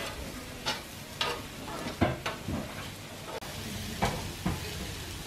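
Sausages and onions sizzling steadily on a flat barbecue hotplate, with metal tongs clicking and scraping against the plate about half a dozen times as the food is turned, the loudest click about two seconds in.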